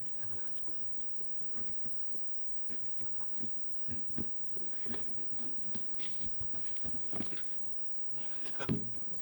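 Close handling noises of needle-and-thread stitching: irregular small clicks, rustles and tugs as the needle and thread are worked through the paper-and-leather chin scale, with a louder knock near the end.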